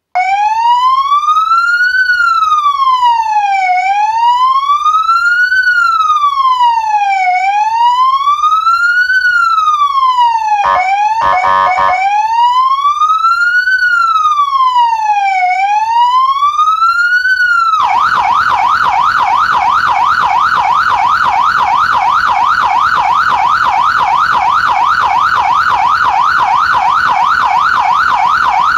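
Federal Signal AS320Dig electronic police siren through an ES100C speaker sounding a slow wail, its pitch rising and falling about every three and a half seconds, briefly broken up about eleven seconds in. About eighteen seconds in it switches to a fast yelp, warbling several times a second.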